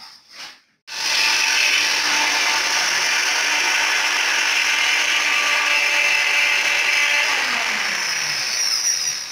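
Electric kitchen blender switched on about a second in and running steadily, then winding down with a falling hum near the end as the motor coasts to a stop.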